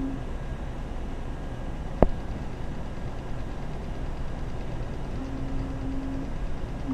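OCT eye-scanning machine running during a scan: a steady hum, a single sharp click about two seconds in, and a low steady tone for about a second near the end.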